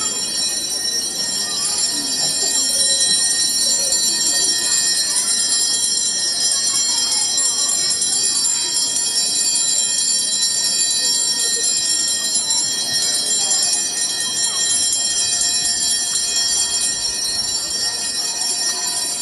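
Small hand bells jingling continuously in a dense, steady high ringing, rung during Benediction of the Blessed Sacrament as the monstrance is carried. Voices are faint underneath.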